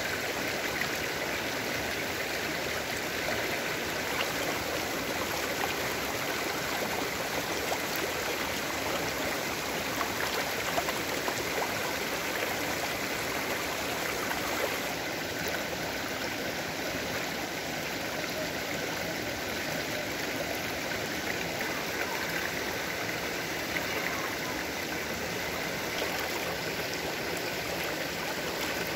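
Shallow mountain stream running over pebbles and rocks: a steady babbling rush of water.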